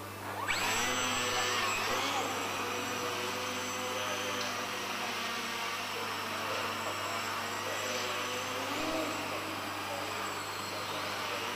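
Motor and propeller of a Leadfeather SkyCart RC flying model spinning up with a sudden rising whine about half a second in, then running on in flight with the pitch wavering as the throttle changes.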